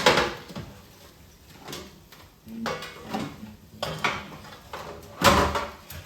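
Kitchen handling sounds: a sharp knock at the start, scattered light clatter, and a louder burst of noise about five seconds in.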